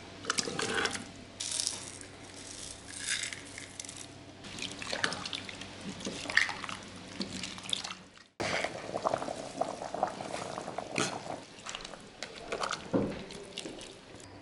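Raw potato chunks dropping and splashing into a pot of stew broth in an electric multicooker, with liquid sloshing as they are pushed in and stirred. Sharp knocks and clinks of utensils against the pot come in between.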